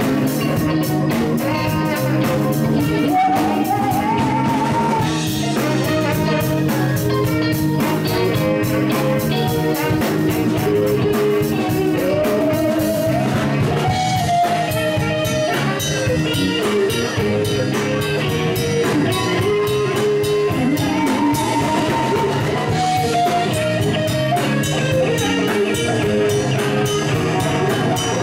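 Live band playing: a woman singing into a microphone over electric guitar, electric bass and a drum kit.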